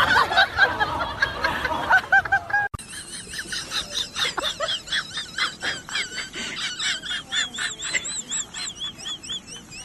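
Birds calling in quick, repeated, arching calls. After an abrupt cut about three seconds in, higher and faster chirping calls follow.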